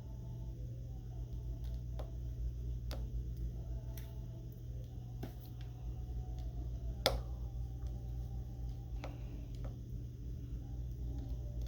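Scattered small clicks and taps from tools and parts being handled during an iPhone XS Max screen replacement, about eight in all, the sharpest about seven seconds in, over a steady low hum.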